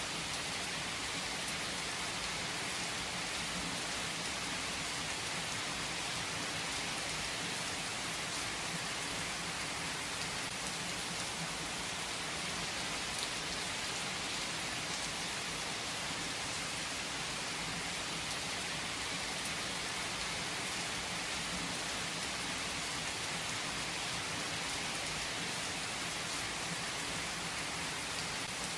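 Heavy rain falling steadily: a dense, even hiss with faint scattered drop ticks.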